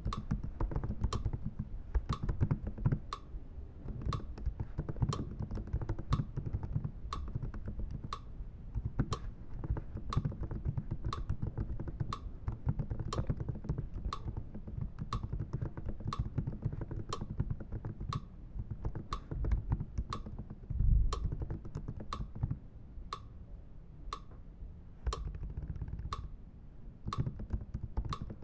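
Fingers typing on a computer keyboard, a continuous uneven clatter of key strokes, with a sharp click repeating evenly about three times every two seconds.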